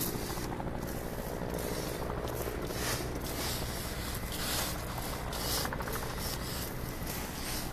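Firefighters working a hose through burning, smoky undergrowth: irregular rustling and scraping of brush and gear over a steady low rumble, with bursts of hiss.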